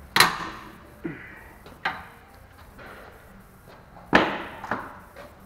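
Sharp metal clanks and knocks of tools and brake parts being handled at the rear brake caliper, five in all, each with a short ring; the loudest come just after the start and about four seconds in.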